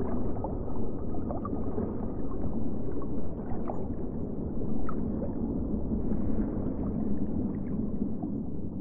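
Underwater ambience: a low, muffled rush of water with a few faint bubble blips.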